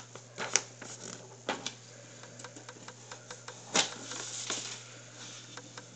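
A sheet of paper being folded and creased by hand: scattered crinkles and sharp little snaps, the loudest a little under four seconds in, over a low steady hum.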